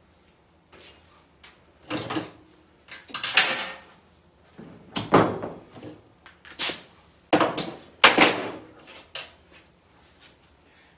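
Stiff wire being bent and worked by hand, with a string of sharp metallic clacks and short scraping rasps, about six loud ones between two and nine seconds in.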